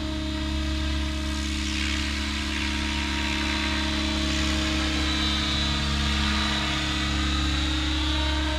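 Align T-REX 700 radio-controlled helicopter in flight: a steady rotor drone with a thin high whine above it.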